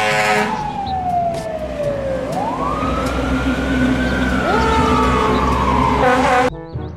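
Fire truck sirens wailing in slow sweeps as the trucks pass, falling then rising and falling again, with a second siren tone joining partway through, over the trucks' engine rumble. A blaring air-horn blast sounds at the start and again near the end, and the sound cuts off suddenly just before the end.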